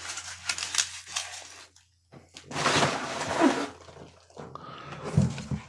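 Packing peanuts rustling as they are scooped out of cardboard boxes by hand, in several bursts with a brief pause about two seconds in and the loudest handful a little past halfway.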